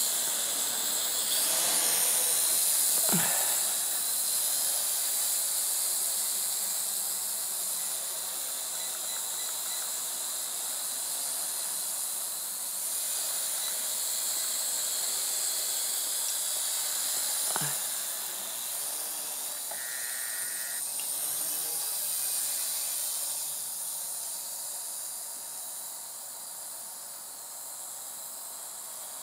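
WLtoys V222 toy quadcopter's motors and propellers whining and buzzing at a high pitch as it flies overhead, growing fainter over the last few seconds, with two brief falling sweeps along the way.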